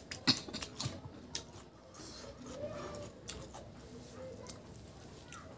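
Eating by hand from a banana leaf: fingers working rice on the leaf and chewing give a run of sharp clicks and crackles in the first second and a half, then softer scattered ticks.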